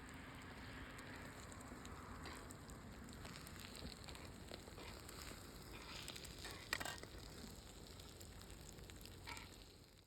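Food frying in a pan: a steady sizzle with scattered pops, one sharper pop about two-thirds of the way through.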